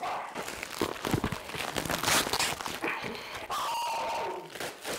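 Thin plastic bag crinkling and rustling as it is pulled and crumpled off a taped cardboard parcel. About three and a half seconds in, a dog gives one short bark.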